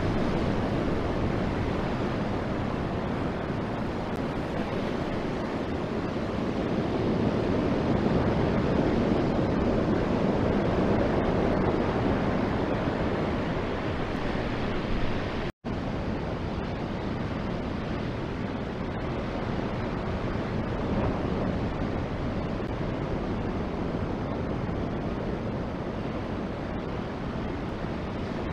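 Surf breaking on the shore: a steady, even wash of wave noise that swells a little and drops out for an instant about halfway through.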